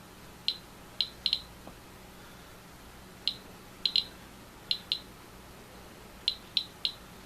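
Geiger counter clicking at random, uneven intervals, about a dozen sharp clicks, as it picks up radiation from a thoriated lens element.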